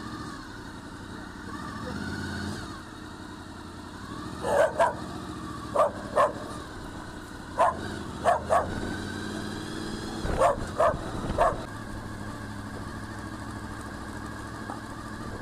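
A dog barking, about nine short barks in pairs and small groups, over the steady hum of an idling motorcycle engine.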